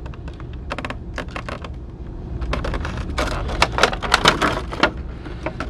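Clear plastic bag crinkling and crackling as it is handled and pulled off a figure. The crackle is sparse at first and gets much busier about halfway through.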